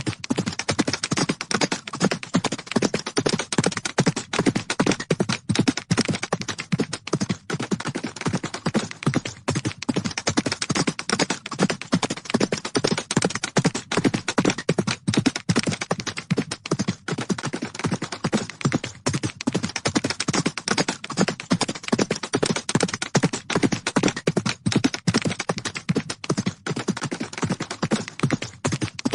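Horses galloping: a rapid, continuous run of hoofbeats, dense and uneven, with no break.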